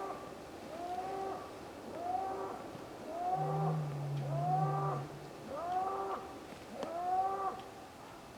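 An unidentified animal calling over and over, about one call a second, each call a short arching cry that rises and then falls in pitch. A lower, drawn-out tone joins in about three seconds in and lasts nearly two seconds.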